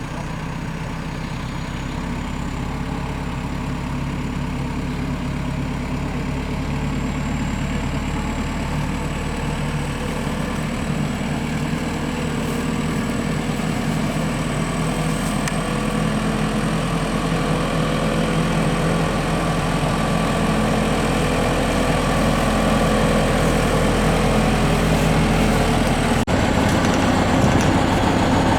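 A heavy engine running steadily, with a faint high whine above it, growing slowly louder.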